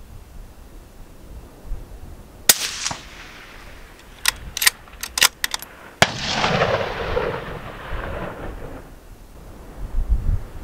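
Shots from a .223 Remington bolt-action rifle, the Ruger American Gen II: a sharp rifle report about two and a half seconds in, then a quick run of four metallic clicks as the bolt is worked. A second sharp report comes about six seconds in, followed by a few seconds of rushing noise.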